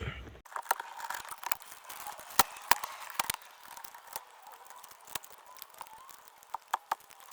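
Scattered light clicks and taps of hands working plastic dashboard trim loose, with a few sharper clicks about 2.5 seconds in and again near the end.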